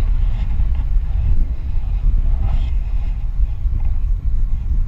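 Wind buffeting the microphone: a loud, steady, fluttering low rumble.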